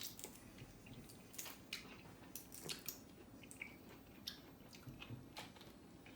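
Faint, scattered wet clicks and squishes of people eating juicy lychees.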